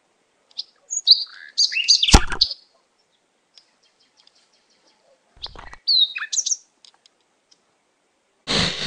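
Cartoon bird-chirp sound effects: quick, high tweets in two short clusters, about a second in and again about six seconds in. A sharp crack falls a little after two seconds, and a short burst of noise comes just before the second cluster.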